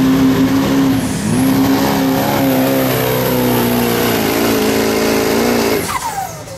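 Diesel pickup truck with a 2.6-inch turbocharger pulling at full throttle, its engine held at high revs with a thin, high turbo whistle over it. The revs dip about a second in and waver. Near the end the throttle comes off, and the sound drops away into a falling whine as the turbo spools down.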